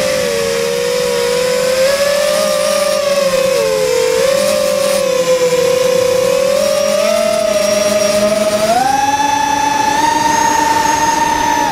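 Sunnysky 2300 kV brushless motors spinning 5-inch three-blade props on a 3S FPV quadcopter: a steady whine whose pitch wavers with the throttle, then steps up about three-quarters of the way through and holds there.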